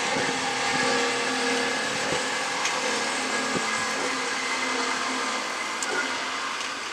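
Steady motor-like whirring hum with a hiss, holding one pitch and easing slightly toward the end, with a few faint clicks.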